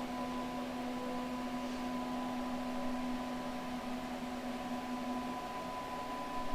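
Stepper motor of a CNC-converted DM45 benchtop mill driving the X-axis ball screw in a jog, a steady whine made of a low tone and a higher, fainter one. The low tone stops about five seconds in.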